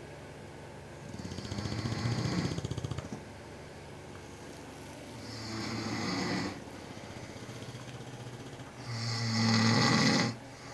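Snoring: three long snores roughly every four seconds, the first starting about a second in with a fast flutter, the last the loudest.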